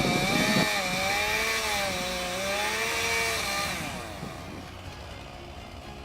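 Chainsaw running as it cuts into a tree, its engine pitch rising and falling, getting quieter about four seconds in.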